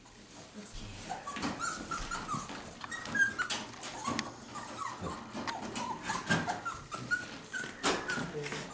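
Young puppy whining and crying in a wire crate, a run of short high-pitched whimpers one after another, the cries of a puppy wanting to be let out. Sharp clicks and rattles of the wire crate are mixed in, the loudest near the end as its door is worked open.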